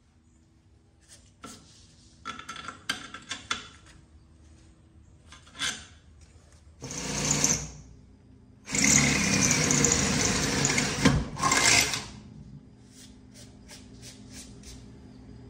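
Welder laying short tack welds: a few seconds of light metal clatter, then bursts of crackling buzz, a short one, a longer one of about three seconds and another brief one, as the front axle is welded on.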